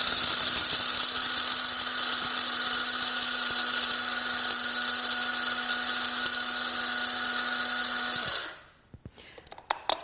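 Cuisinart DCG-20 electric blade coffee grinder running steadily, its stainless steel blade grinding whole coffee beans, with a constant motor hum and a high whirring hiss. It cuts off suddenly about eight seconds in when the lid button is released, and a couple of light clicks follow near the end.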